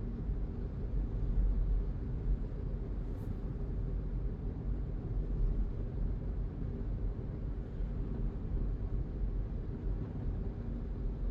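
Steady low rumble of a car driving, engine and tyre noise, with a faint short click about three seconds in.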